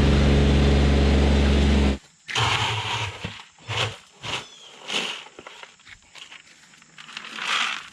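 Rock music that cuts off about two seconds in, followed by a low rumble and a series of short, irregular scrapes and knocks.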